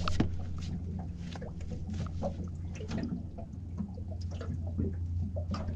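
Irregular small drips, clicks and light splashes of water, over a steady low hum.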